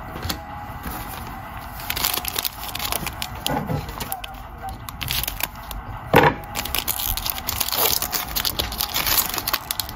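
Trading cards and their packaging being handled: a steady run of crackling and clicks, with one sharper crack about six seconds in.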